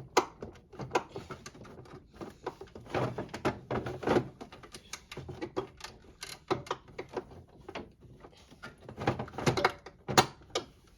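Plastic knocks, clicks and scrapes of a humidifier's refilled water tank being handled and fitted back into the unit.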